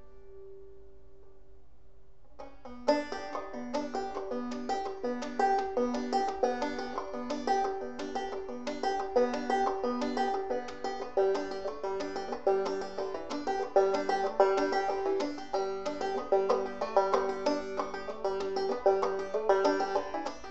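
Five-string banjo played clawhammer style: a chord rings and fades, then about three seconds in a steady, rhythmic clawhammer pattern begins, using the alternate-string pull-off. Its repeating low note drops to a lower pitch about halfway through.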